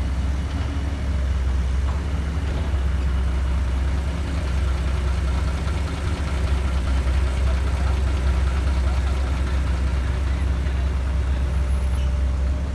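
Dump truck's diesel engine running steadily, a deep even hum with no change in speed.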